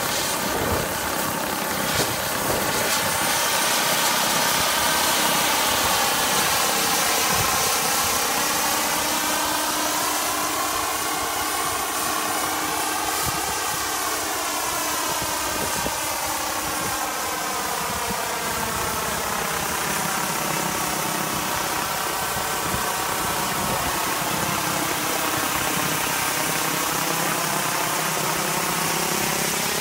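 Scale RC UH-1D Huey helicopter's model turbine engine and rotor running in flight: a steady high turbine whine over rotor noise, the tone sweeping down and back up as the helicopter moves about, about halfway through and again near the end.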